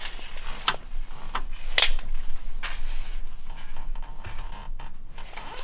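Scattered light clicks and knocks as a metal tape measure is handled against wooden ceiling joists.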